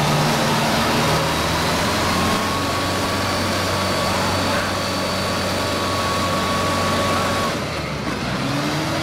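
Kubota DC-105X combine harvester's diesel engine running hard at full throttle, steady and loud, with a thin steady whine through the middle, as the machine strains in deep mud with its tracks slipping and fails to move.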